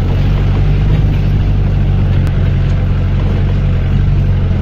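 A vehicle engine running steadily with a low, even drone, heard from aboard the moving vehicle, with a steady rushing noise over it.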